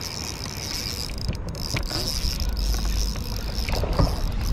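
Steady high-pitched insect buzzing, with a low rumble and a few scattered clicks from the fishing reel and tackle as a bass is reeled in.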